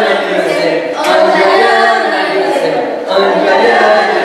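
A group of teenage voices singing together without accompaniment, with a new sung phrase starting about every two seconds.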